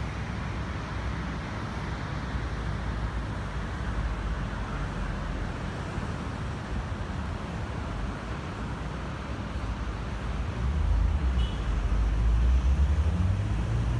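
Steady wash of distant road traffic heard from high above, with a low rumble that swells about ten seconds in.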